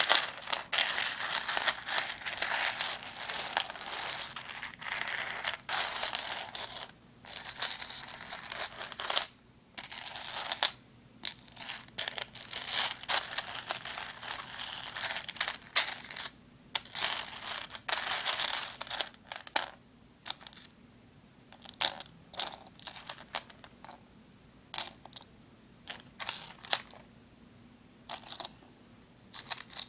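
Seashells being handled, clicking and scraping against one another: a dense run of clatter and rustling, thinning out after about twenty seconds to separate clicks and taps.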